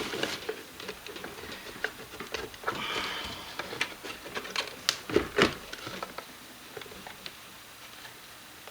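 Light clicks, taps and a short scrape from hand tools and small parts being handled while a Boss MA-5 monitor amp is taken apart, with two sharper knocks a little past the middle.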